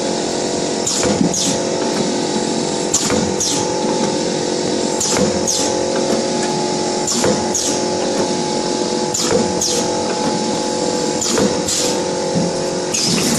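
Yixun YX400 wire-cut cookie machine running: a steady motor hum with several steady tones, and a pair of quick falling swishes repeating about every two seconds.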